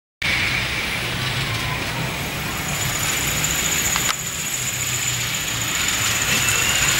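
Miniature steam locomotive No. 326 Bessborough approaching on the track: a steady hiss with a low rumble that grows louder toward the end, with a thin high steady tone from about three seconds in and a single click about four seconds in.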